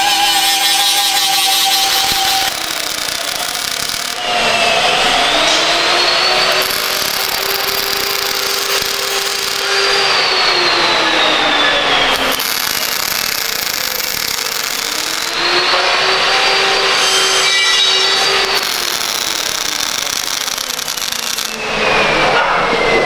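Angle grinder with a flap disc running against steel tubing, grinding welds smooth, with a steady whine at first. Then the grinder spins up, holds and winds down in two long stretches. Near the end, a short burst of welding arc crackle.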